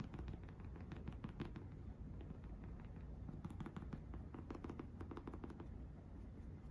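Quick, light clicks and taps in two flurries, the second one denser, from makeup items being handled up close, over a low steady hum.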